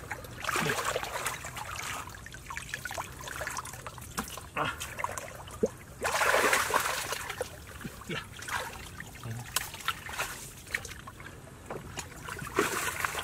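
Shallow muddy river water sloshing, splashing and trickling as a person moves through it and gropes with his hands under tree roots, in uneven surges with the loudest splashing about six seconds in.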